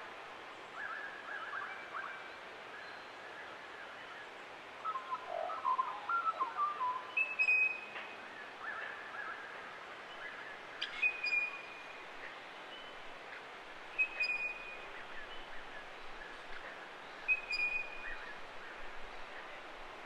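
Wild forest birds calling in mountain ash forest: warbling, gliding phrases in the first half, and a short high call with a sharp click that repeats about every three seconds, over a steady background hiss.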